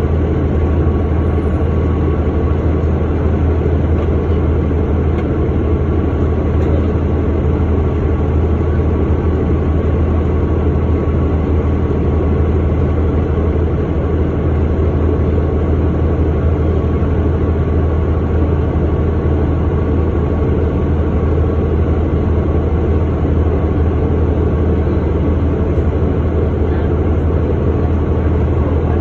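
A 2009 Orion VII Next Generation hybrid-electric bus (Cummins ISB 6.7 diesel with BAE HybriDrive) running: a steady low drone with a faint, even whine above it.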